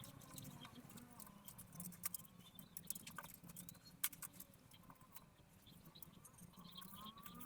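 Faint scattered clicks and rustling of power-supply cables being handled and tucked into a PC case's power supply shroud, with one sharper click about four seconds in.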